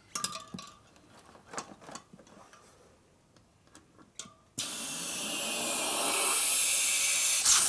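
A few light knocks and clicks of handling. Then, about halfway through, compressed air starts hissing suddenly and steadily at the valve of a motorcycle tire's inner tube, growing a little louder.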